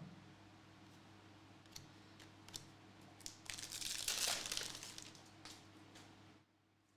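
Faint rustling and crinkling of basketball trading cards and their pack wrappers being handled, with a few light clicks and a louder stretch of rustling about halfway through, over a steady low hum that cuts off abruptly near the end.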